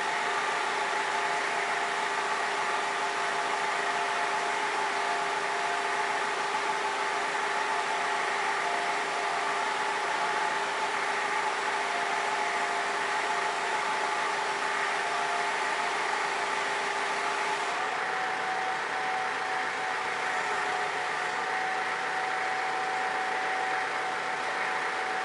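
Yale forklift running with a steady mechanical hum and whine while its hydraulics turn the rotator clamp attachment. The whine changes pitch about two-thirds of the way through.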